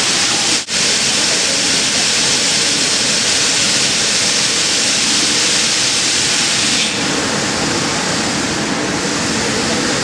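Steady, loud rushing hiss of the CNC router's running equipment in the shop. There is a brief dropout just under a second in, and the hiss thins slightly in the higher range about seven seconds in.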